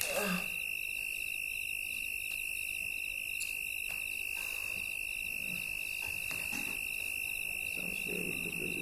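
A steady high-pitched electronic whine holds one pitch throughout. Textbook pages rustle as a page is turned at the start, with a few faint paper rustles later.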